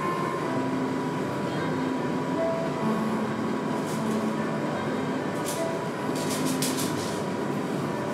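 Steady low rumbling room noise with a faint high steady tone running through it, and a few soft sharp clicks about five to seven seconds in.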